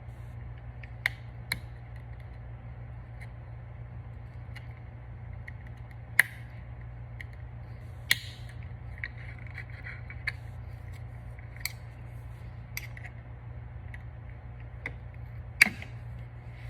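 A small tool prying and scraping at a small spring on a caliper handle: scattered sharp clicks and a short stretch of light scraping, over a steady low hum.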